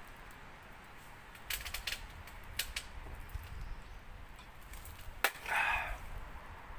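Wood fire in a small camping wood-gas stove crackling, with scattered sharp snaps and pops. A loud snap about five seconds in is followed by a short hiss.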